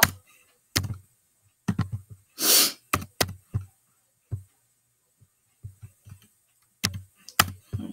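Irregular taps and clicks of typing on a keyboard, with a pause in the middle, and one short breathy hiss about two and a half seconds in.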